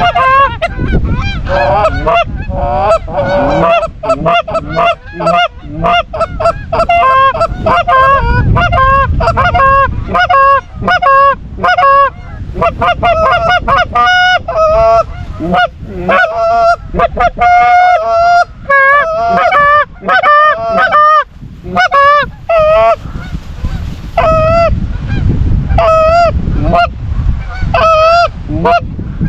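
Geese honking: many overlapping honks at first, thinning near the end to single honks about one a second. A low rumble lies underneath.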